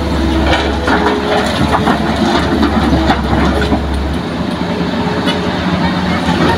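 Hitachi hydraulic excavator's diesel engine running as its bucket dumps fill soil into a steel dump-truck bed, with earth and stones clattering into the bed. The low engine drone eases off about four seconds in as the empty bucket swings back.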